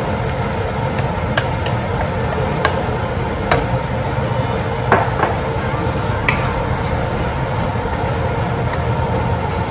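A cooking utensil knocking and scraping against a pan while minced mushrooms are stirred in oil: scattered sharp clicks at irregular intervals over a steady low hum.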